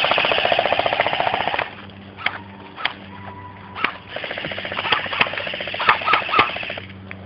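Airsoft guns firing full-auto: a rapid rattle of shots in two long bursts, the first lasting about a second and a half, the second about three seconds, with a few single shots between them.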